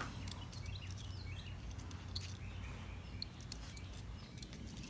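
Faint background birdsong of short scattered chirps, with a few light clicks and a low steady hum underneath.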